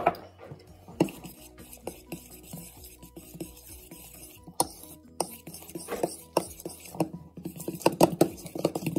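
Fork stirring pancake batter in a bowl, its tines clinking and knocking against the bowl in scattered strokes. The strokes come quicker and louder near the end.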